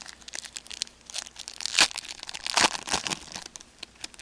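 Foil trading-card pack wrapper crinkling and tearing as a pack is opened, in a run of quick rustles that are loudest around the middle.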